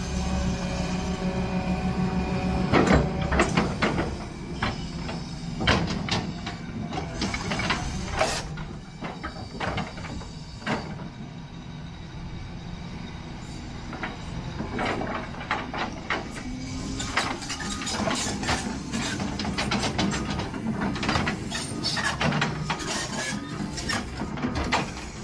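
2015 Doosan DX350 LC-5 crawler excavator working: a steady diesel engine hum under repeated clanks, knocks and squeaks from its steel tracks and moving boom and bucket as the machine travels.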